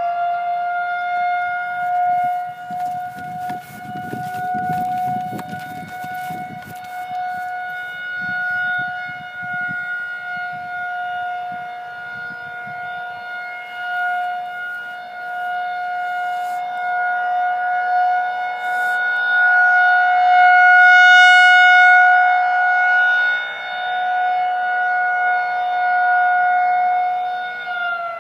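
Federal Signal 2001-130 single-tone rotating electromechanical siren sounding a steady alert tone at constant pitch. It swells into a loud scream as it rotates toward the listener and fades as it turns away, loudest about two-thirds of the way through.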